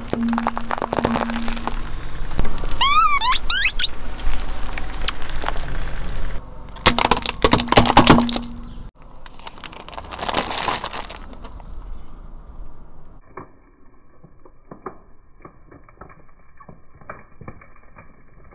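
Hard-candy lollipops crunching and cracking under a slowly rolling car tyre, with a few high falling squeaks about three seconds in and the loudest cracks about eight seconds in. After a cut near the halfway point come quieter, muffled taps and clicks as Orbeez water beads spill from tipped plastic cups.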